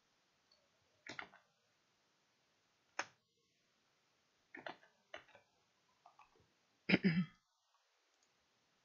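Computer mouse clicks: about six short, separate clicks spaced a second or two apart, the loudest and fullest about seven seconds in.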